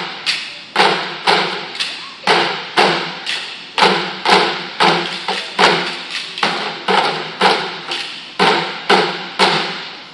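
Percussion ensemble playing pipes and buckets in unison: a steady beat of about two sharp hits a second, each with a short pitched ring, which stops near the end.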